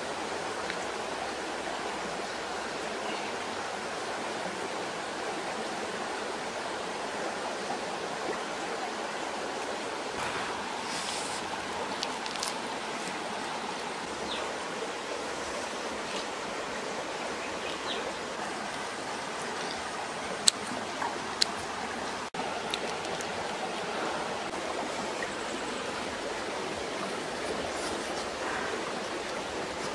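Shallow stream running over rocks, a steady rush of water. A couple of sharp clicks stand out about two-thirds of the way through.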